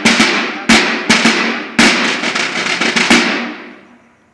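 Marching snare drum struck with sticks: sharp single strokes, then a quicker run of strokes, each ringing out, the drumming dying away about four seconds in.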